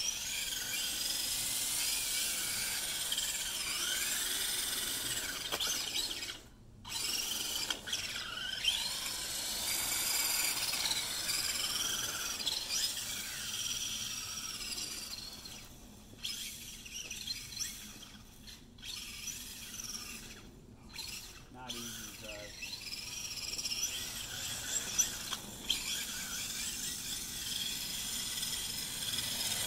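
Radio-controlled truck driving and drifting on pavement: its motor whines up and down in pitch with the throttle, mixed with tyre squeal. The sound cuts out briefly a few times.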